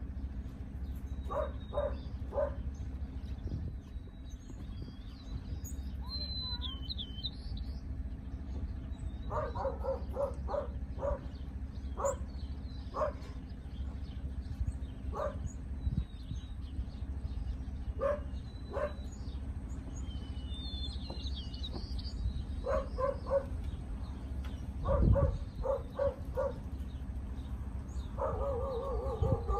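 A dog barking in short runs of two to four barks, with a quick string of barks near the end, while birds chirp now and then.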